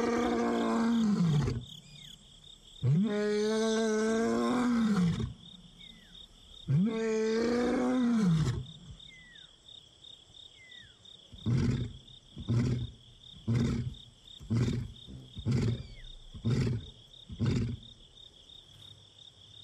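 Young male lion roaring as a contact call: three long moaning calls, then a run of about seven short grunting calls roughly one a second that grow fainter. Behind it runs a steady, pulsing insect chorus.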